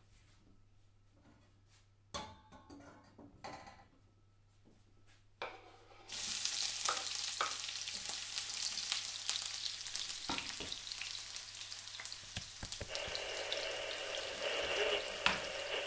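A few faint clicks, then a dense crackling hiss starts suddenly about six seconds in and runs on steadily. A louder band of noise joins it about seven seconds later.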